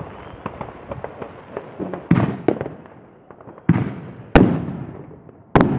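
Fireworks going off: scattered small crackling pops, then four loud, sharp firework bangs over the next few seconds, each trailing off in an echo.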